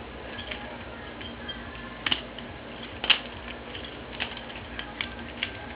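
Butterfly knife (balisong) being flipped through tricks: the handles clack against each other and the tang in an irregular scatter of light clicks, the two sharpest about two and three seconds in.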